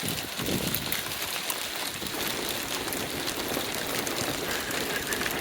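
Steady pattering of falling precipitation, a mix of rain and small hail: an even hiss dotted with many fine ticks.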